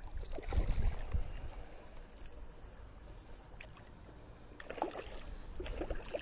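A hooked trout splashing at the water's surface as it is played in toward a landing net: a burst of splashing about a second in, and a cluster of smaller splashes near the end.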